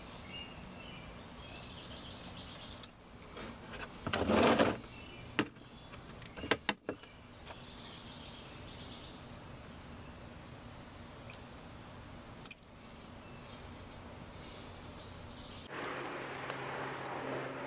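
Outdoor background hiss with faint bird chirps, broken by a short loud rustling burst about four seconds in and several sharp clicks and knocks a second or two later; near the end the background turns louder and brighter.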